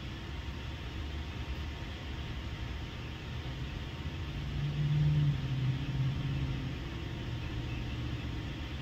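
Steady low rumble and hiss of background noise, with a low droning hum that swells about four and a half seconds in, drops slightly in pitch and fades out a couple of seconds later.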